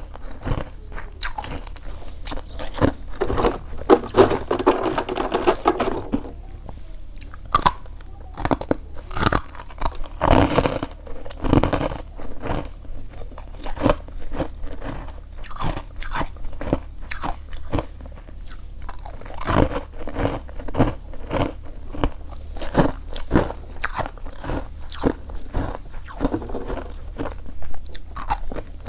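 Close-up crunching and chewing of freezer frost: dense, irregular crackling bites and chews, with heavier runs of crunching about a quarter of the way in and again a third of the way in.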